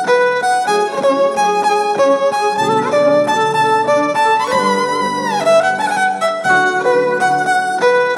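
Violin playing a quick melody of short notes over a steady backing accompaniment, with one note sliding down about five seconds in.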